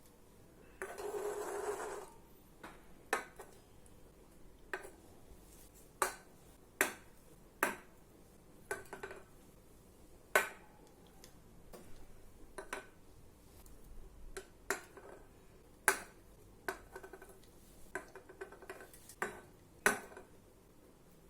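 Sharp clicks and knocks of small hard objects being handled, each with a short ring, about a dozen of them at irregular intervals. A brief rushing noise lasts about a second, starting about a second in.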